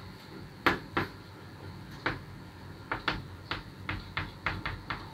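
Chalk writing on a blackboard: about a dozen short, irregularly spaced taps and scratches as letters are stroked onto the board.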